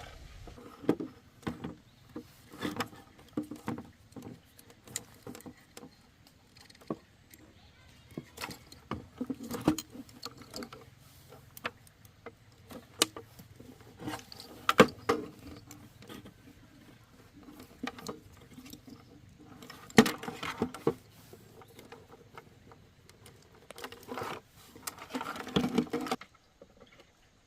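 Irregular clicks, knocks and clatter of hand tools and parts being handled during repair work on an electric motorcycle, with a few louder clatters and a faint background hum.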